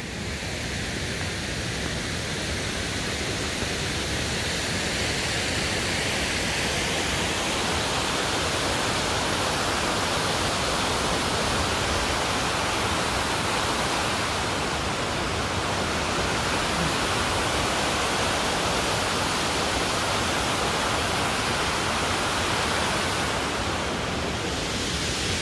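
Steady roar of a tall waterfall close by, a loud rushing noise that swells over the first several seconds and then holds level.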